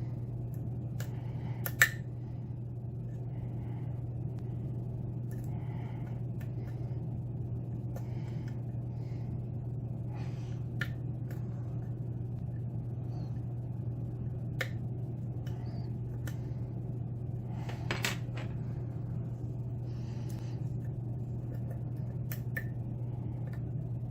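Light, scattered metallic clicks and ticks of a lock pick and tension wrench working the pins of a Yale pin-tumbler lock, over a steady low hum. One sharper click comes about two seconds in.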